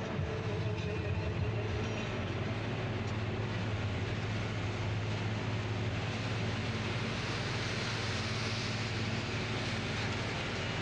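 Truck engine running steadily with road and tyre noise heard from inside the cab. A low hum sits under a hiss that grows brighter about halfway through.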